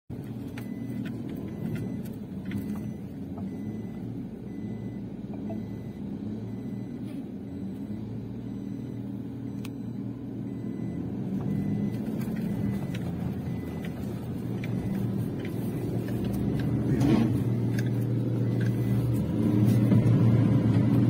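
Toyota Hilux Revo pickup's engine running at low speed on a rough dirt track, heard from inside the cab as a steady low hum. It grows louder over the last few seconds, and there is a brief knock about three-quarters of the way through.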